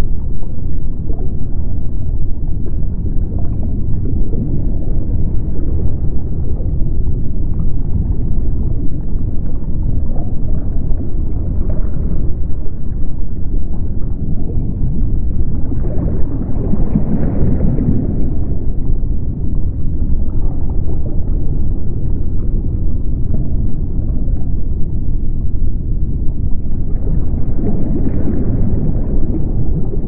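Deep underwater ocean ambience: a steady, low wash and rumble of moving water, swelling a little about halfway through and again near the end.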